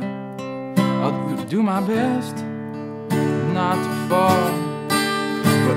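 Acoustic guitar strummed, with a man's voice singing drawn-out wordless notes with vibrato over it.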